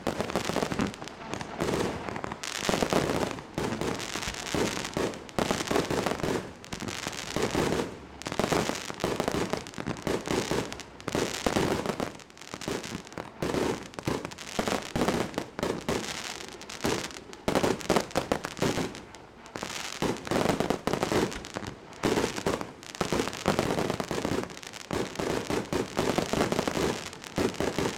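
A 100-shot fan-pattern white strobe willow firework cake firing: an unbroken, rapid string of launch thumps and aerial bursts, several shots a second.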